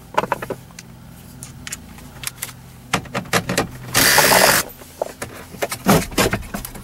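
Cordless drill-driver and hand work removing a truck's factory radio: scattered clicks and knocks of the socket on the 7 mm screws, a short loud burst of the driver about four seconds in, then knocks and rattles as the radio is pulled out of the dash.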